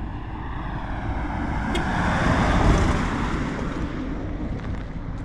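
Motor vehicle engine and road noise, swelling to a peak about halfway through and then easing off.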